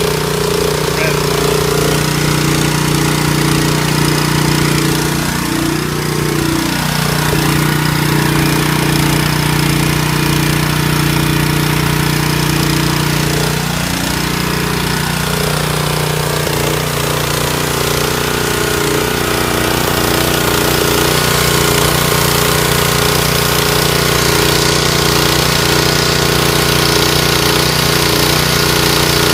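Honda GX270 single-cylinder engine running steadily at constant speed, driving a General Pump EZ3035 triplex pressure-washer pump.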